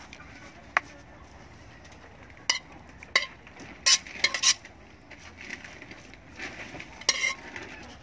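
Rice-and-tomato stuffing being mixed by hand in a plastic bowl, with a handful of short sharp clinks and knocks as a metal pot is tipped against the bowl to pour in the fried tomato sauce.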